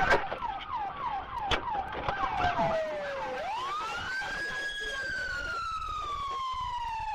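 Police car siren, first on a fast yelp of quick repeated sweeps, then switching about three seconds in to one long wail that rises and slowly falls.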